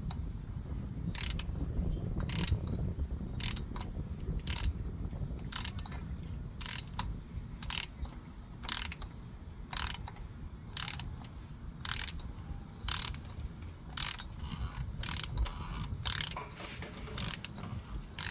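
A 3/8-inch ratcheting torque wrench on an extension clicking in slow, uneven strokes, about one click a second, while tightening the plastic oil filter housing to torque. A low steady rumble runs underneath.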